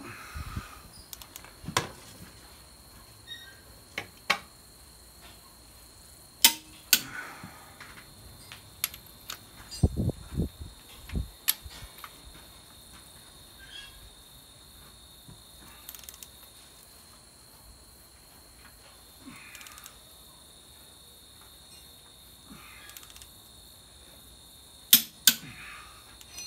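Torque wrench and socket working DT466E cylinder head bolts to 150 lb-ft: scattered sharp metallic clicks and knocks, with a quick double click near the end.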